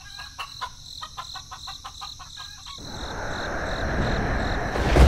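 A run of short, quick animal calls, several a second, for about three seconds, then the steady hiss of rain comes in and grows louder.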